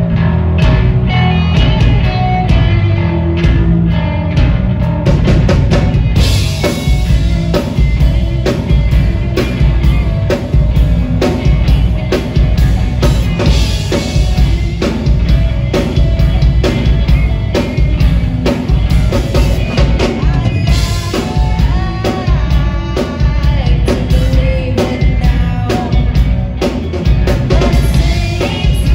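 Live rock band playing: electric bass, drum kit and electric guitar, with a woman singing into a microphone. Cymbals come in about six seconds in.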